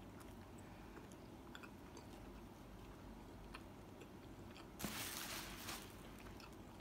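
Faint close-mouthed chewing of a soft bread bun filled with baked potato and bacon, with small wet mouth clicks. About five seconds in, a brief louder rustle lasts about a second.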